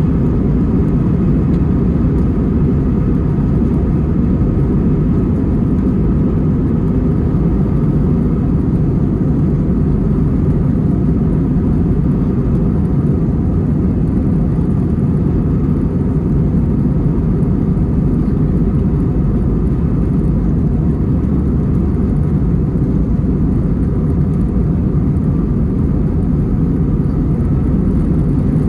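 Airbus A320 jet engines at takeoff thrust during the takeoff roll, heard inside the cabin: a loud, steady roar with a low rumble and a faint steady whine on top.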